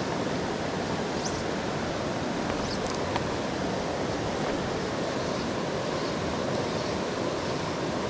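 Steady rushing of a mountain headwater stream, an even wash of water noise that holds level throughout.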